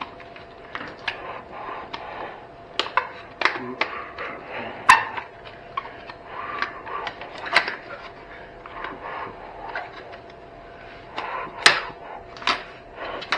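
Irregular metallic clanks and clicks of hand tools and loose parts being handled while an old battery charger is dismantled, with two louder knocks about five seconds in and near the end.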